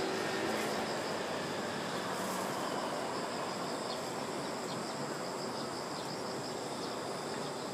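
Distant jet engine noise from an FDA Embraer regional jet: a steady, even rushing rumble that slowly fades.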